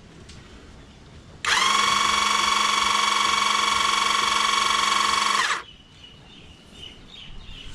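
12V electric hydraulic floor jack's motor-driven pump running for about four seconds under load, its whine rising slightly in pitch as it starts, then holding steady before cutting off, as it lifts the vehicle's wheel off the ground.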